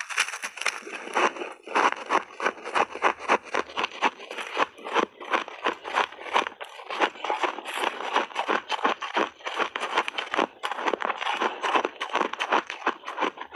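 Close-miked crunching of a mouthful of mixed-berry shaved ice being chewed: a rapid, continuous run of crisp crunches, several a second.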